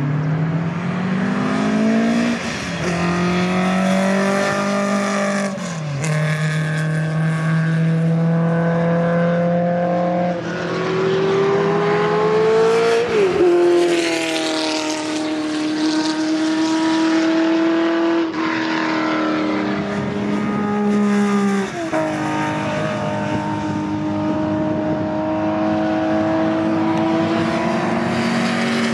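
Historic GT and touring race cars' engines accelerating hard past the track, their pitch climbing and then falling sharply at each upshift, several times over.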